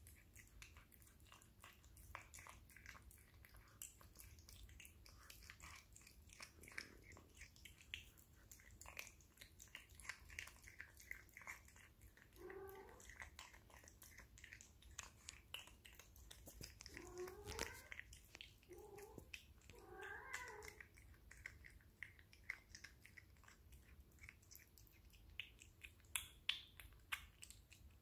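Quiet wet chewing, smacking and clicking as a cat eats raw salmon, with a few short cat calls about halfway through and again a little later.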